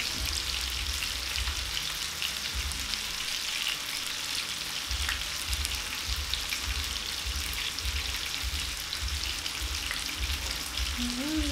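Tilapia fish with sliced onions and green pepper frying in hot oil in a frying pan: a steady sizzle with fine crackling spits.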